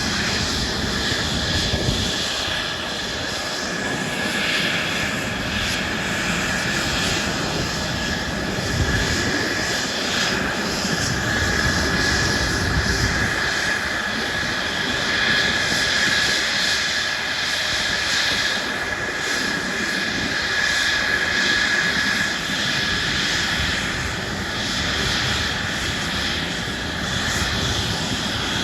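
Airplane engine in flight, a continuous roar with a steady high-pitched whine that grows louder through the middle and eases off again.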